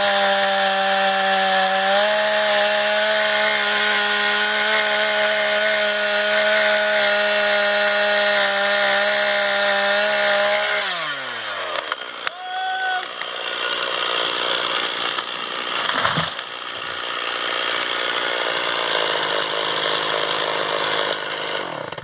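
Gasoline chainsaw running at steady high revs while felling a pine, its pitch stepping up slightly about two seconds in, then winding down a little after halfway. After that comes a rushing noise with a single sharp knock.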